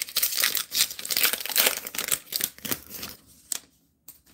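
Trading-card pack wrapper crinkling as it is torn open and pulled off the cards, a dense run of crackles that dies away about three seconds in, with one short click after.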